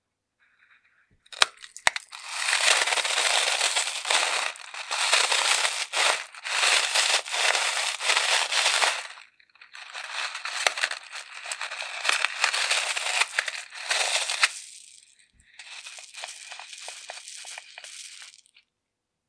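Scissors snip twice into a balloon full of small beads, then the beads spill out into a glass bowl with a grainy, crunchy rush that comes in several surges with short pauses. Near the end, a softer crackly patter as the last beads are squeezed out of the emptied balloon.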